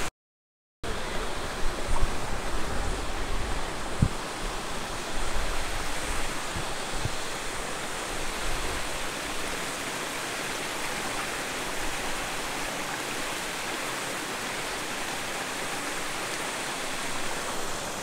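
Waterfall rushing steadily, heard from right at the top of the falls. The sound cuts out for under a second at the start, and a single knock comes about four seconds in.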